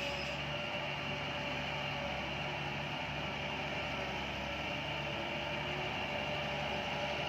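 Bulldozer's diesel engine running steadily: an even mechanical hum with a few constant tones and no changes in pitch or level.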